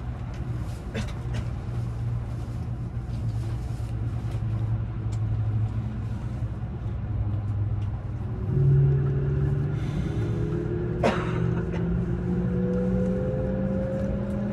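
E353 series electric train heard from inside the carriage: a steady low rumble, then about eight seconds in the traction motors' whine starts and climbs slowly in pitch as the train picks up speed. A single sharp click comes about eleven seconds in.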